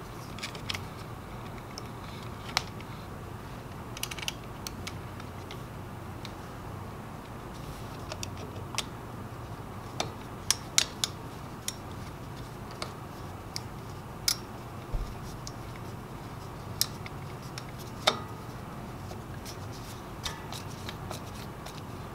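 Scattered small clicks and scrapes from a screwdriver driving the ground screw and from handling a ring-terminal ground wire in an electric motor's terminal box, over a steady low hum.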